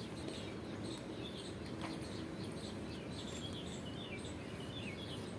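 Faint chirping of small birds, a few short calls in the second half, over steady background noise.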